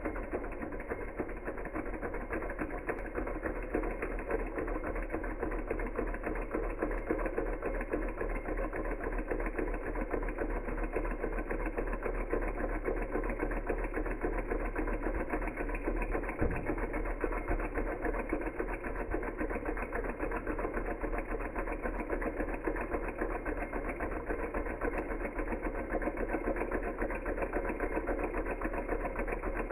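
Small Hog Motor model Stirling engine running steadily, its piston, walking-beam linkage and flywheel making a fast, even mechanical clatter.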